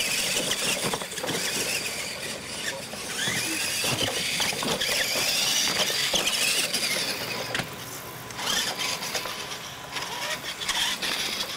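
Radio-controlled monster trucks racing on dirt, their motors and gears whining and rising and falling in pitch as they accelerate and ease off.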